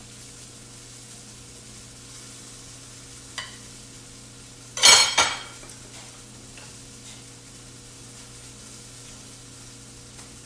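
Faint steady sizzle of food frying on the stove, with a short click about three seconds in and a loud double scrape and knock about five seconds in as a utensil scoops flesh out of a pineapple shell.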